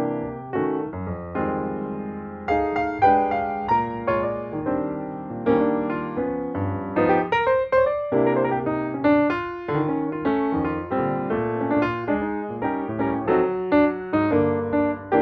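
Background piano music: notes and chords played at an even pace, each note struck and then fading.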